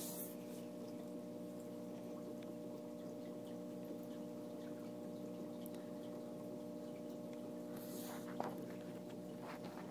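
Aquarium filter running: a steady electrical hum with faint trickling water. A brief rustle about eight seconds in.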